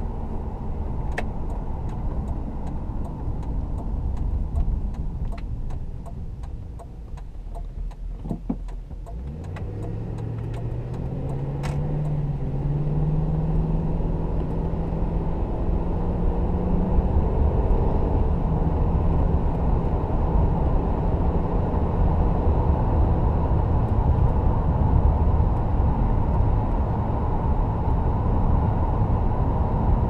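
2002 Ford Thunderbird's 3.9-litre V8 and road noise heard from the driver's seat: the car eases off, then accelerates from about ten seconds in, the engine note rising in pitch over several seconds before settling into a steady cruise.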